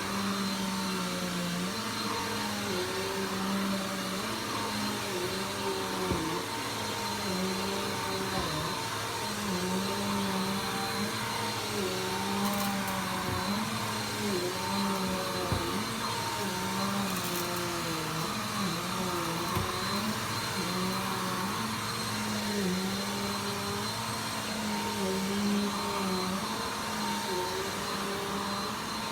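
Vacuum cleaner running steadily, its motor pitch dipping and rising every second or two over a thin high whine.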